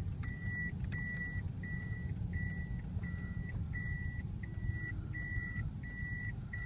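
A car's reverse-gear warning beeper sounding a steady high beep about every 0.7 seconds, the sign that the car is in reverse. It sounds over the low rumble of the engine and road heard inside the cabin.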